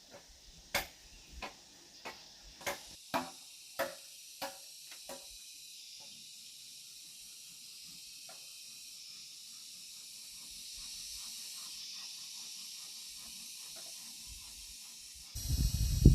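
A run of about nine sharp knocks, roughly two a second, that thin out and stop about five seconds in, over a steady high hiss. A sudden loud low rumble starts near the end.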